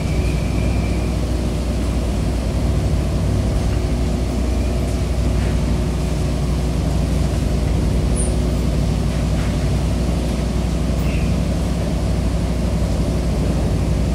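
Ferry's engines droning steadily, heard from inside the passenger cabin: a constant low rumble with a steady hum over it. A faint high whine fades out about a second in.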